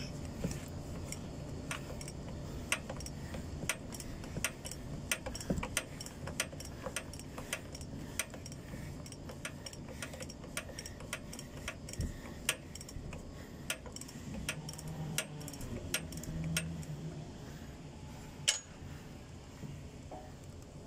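Socket ratchet clicking in a fairly even series, about two to three clicks a second, as it loosens a plastic filter housing cap on a truck engine.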